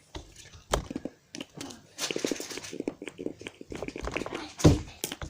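Stiff, hardened slime being pulled and squeezed by hand, making irregular sticky clicks and pops, with a louder thump about four and a half seconds in.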